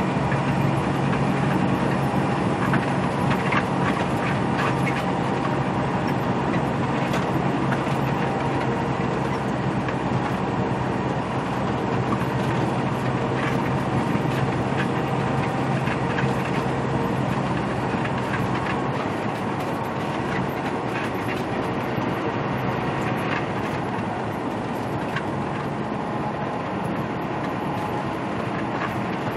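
Semi-truck engine droning steadily at highway speed, heard inside the cab over tyre and road noise, with light rattles. The low engine hum eases a little about two-thirds of the way through.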